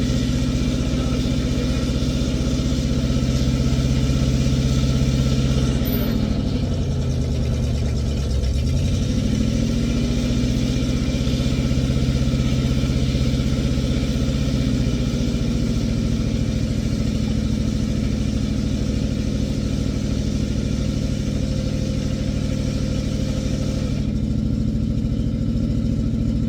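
Old International backhoe's engine running steadily at working speed; about six seconds in its pitch sags for a couple of seconds, as under load, then climbs back up and runs on steadily.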